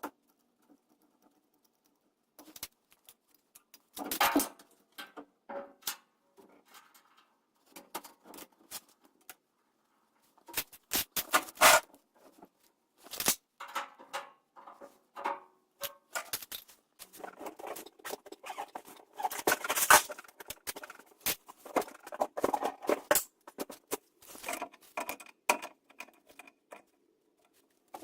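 Hand tools and metal fittings handled in short irregular bursts: clinks, scrapes and rattles with short gaps between them.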